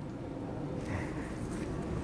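Low, steady rumble of vehicle engines running nearby, with no distinct single event standing out.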